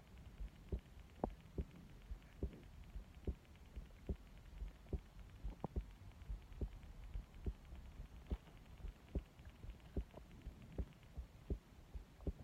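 A person's heartbeat picked up at the chest: a steady run of soft, low thumps, about two to three a second.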